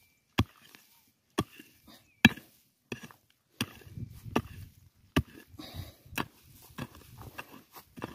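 A digging tool chopping into the soil, about nine sharp strikes roughly a second apart, digging out a target that a metal detector has just signalled.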